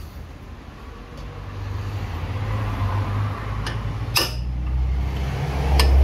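A few sharp metal strikes of a hammer on a punch, staking the front axle nut's collar so the nut cannot work loose. The loudest strike comes about four seconds in, over a low rumble.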